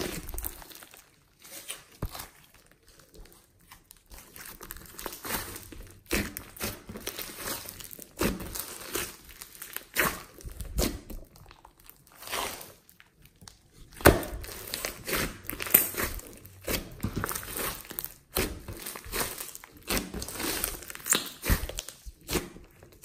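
Glossy slime mixed with small foam beads being squished, stretched and pressed by hands: irregular crackles and sharp pops, with a couple of brief quiet pauses.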